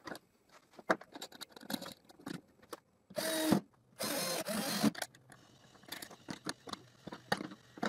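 Cordless drill running in two short bursts, about three and four seconds in, driving into a metal angle on a plywood base. Before and after it, light clicks and knocks of the chainsaw and wooden parts being handled.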